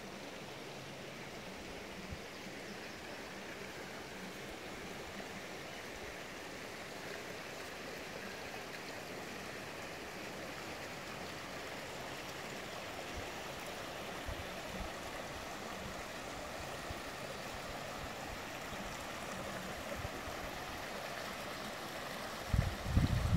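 Creek water flowing over rocks: a steady rushing that grows slightly louder. Near the end, loud low rumbling hits the microphone.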